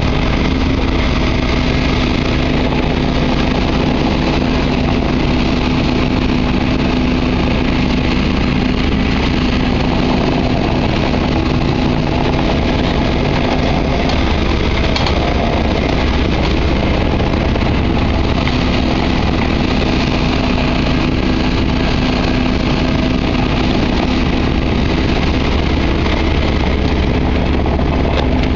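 Diesel engine of a Volvo compact excavator running at a steady speed while it works its boom and bucket, a constant even drone.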